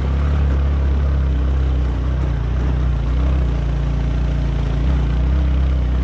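A 125 cc motorcycle engine running steadily as the bike rides over a rough, stony gravel track: a constant low engine drone under a rushing hiss of road and wind noise.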